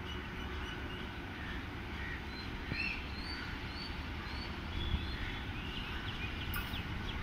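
Birds calling: a string of short, high chirps in the middle, over a low steady rumble.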